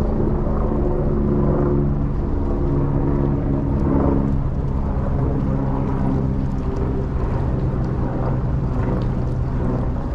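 An engine running close by with a steady low hum; its pitch shifts slightly about three seconds in, and it eases off a little in the second half.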